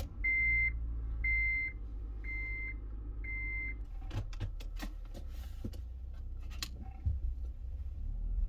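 A Honda Element's dashboard warning chime beeping four times, about once a second, over the low, steady idle of its four-cylinder engine, just started. After that come scattered clicks and knocks of controls being handled in the cabin.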